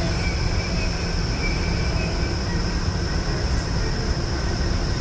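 Vertical wind tunnel for indoor skydiving running: a loud, steady rush of air and deep rumble from its fans, with a thin high whine held above it.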